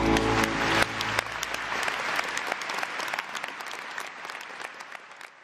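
An audience applauding, the clapping fading steadily away. The last notes of background music die out about a second in.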